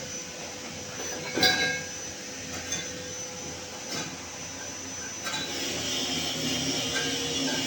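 A sharp clink about a second and a half in, then a few lighter clicks and knocks over a steady hum.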